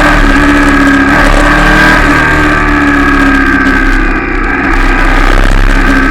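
Royal Enfield Shotgun 650's 648 cc parallel-twin engine and exhaust running under way at a fairly steady pitch, easing off briefly about four seconds in before picking up again.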